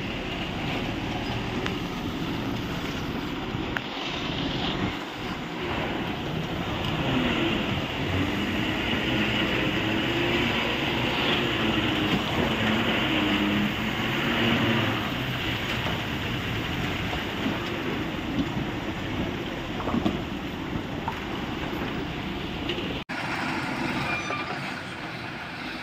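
Loaded multi-axle goods truck's diesel engine running as it crawls through deep mud, its note wavering up and down. The sound cuts out for an instant near the end.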